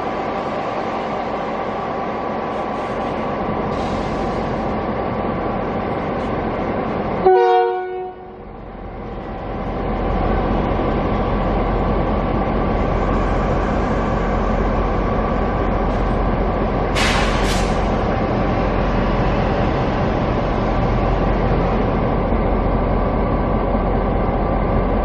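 Diesel locomotive of a long-distance passenger train idling with a steady hum, then one short horn blast about seven seconds in. From about ten seconds the engine's deep rumble grows stronger as it prepares to pull out, with a brief hiss near the middle.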